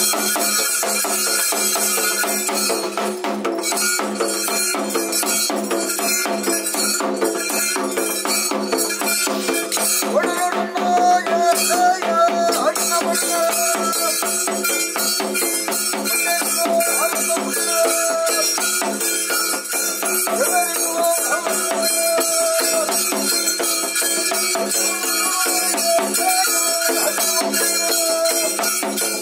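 Live ritual drum music: hand drums in a fast, steady rhythm with jingling rattles, and a pitched melody line over them that grows more prominent about ten seconds in.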